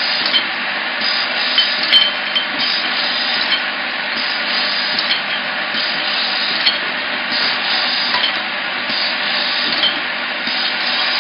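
Automatic screw capping machine running with a steady mechanical noise. Scattered light clinks of glass bottles knock together on the conveyor and star wheel.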